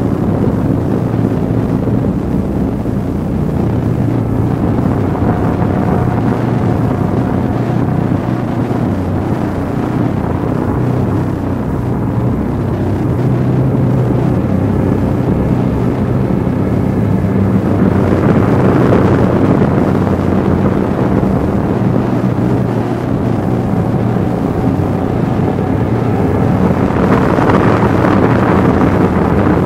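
Dark ambient drone: a dense, steady low rumble with held low tones, swelling with brighter hiss about two-thirds of the way through and again near the end.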